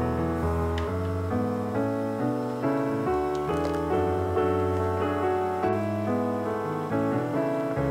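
Background piano music: a gentle melody over sustained chords.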